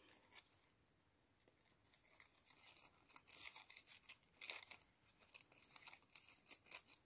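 Small craft scissors cutting tissue paper: faint, crisp snips and paper rustles, starting about two seconds in.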